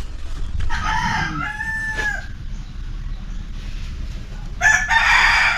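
A rooster crows about a second in. Near the end, lumps of charcoal clatter as they are tipped from a basin onto a pile.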